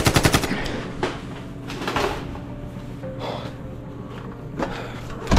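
A door being pushed through with a rapid rattling clatter at the start, followed by a few scattered knocks and bumps and a loud thump at the very end.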